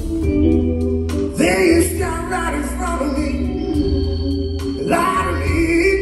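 Live blues-rock band playing: electric guitars and bass holding sustained chords over drums, with a singing voice coming in twice, heard from the audience seats.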